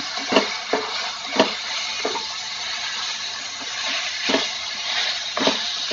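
Chicken pieces sizzling in hot oil in a pan, with a silicone spatula knocking against the pan a few times as they are stirred.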